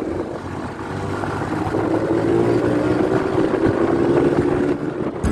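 A vehicle's engine running as it drives along, its note getting louder about a second in and then holding steady.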